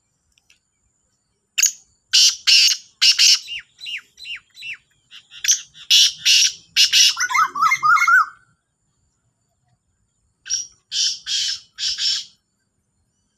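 Black francolin calling: a long run of harsh, rasping notes, then after a pause of about two seconds a shorter phrase of four notes.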